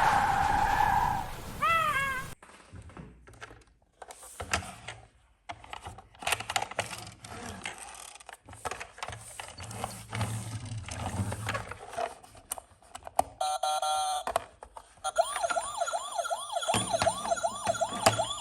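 An electronic siren-like tone stops about a second in, followed by a few short chirps and then a long stretch of scattered clicks and rattles. About three seconds before the end, a fast up-and-down siren wail starts, sweeping several times a second.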